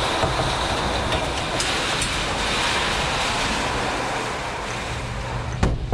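Strong thunderstorm wind blowing in a steady, loud rush. Near the end there is a sharp knock.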